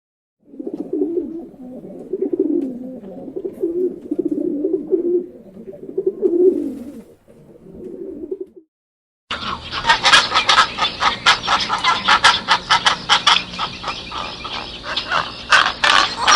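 Pigeon cooing in low, wavering phrases, followed after a short pause by a different bird's harsh call made of rapid clicks.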